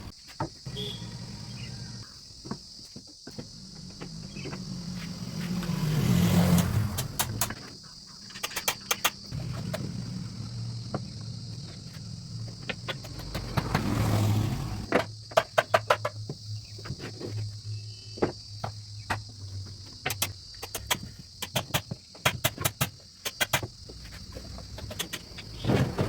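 A small motor running with a low hum that swells louder twice, with many sharp clicks and knocks throughout.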